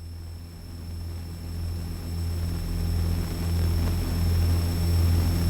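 Twin piston engines of a Beechcraft Travel Air droning steadily in flight, a low even hum that grows gradually louder.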